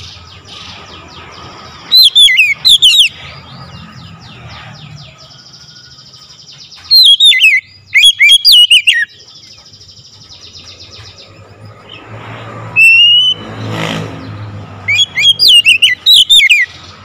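Oriental magpie-robin (kacer) singing loud, clear song in three bursts of rapid whistled, warbling notes, with a single rising whistle shortly before the last burst.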